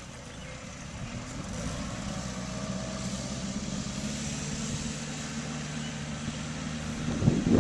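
Compact tractor engine running steadily under way, louder and rougher near the end.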